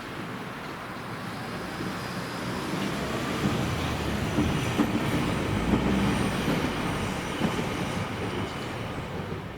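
A train passing over a railway level crossing. Its wheel and rail noise swells to a peak about halfway through, then fades.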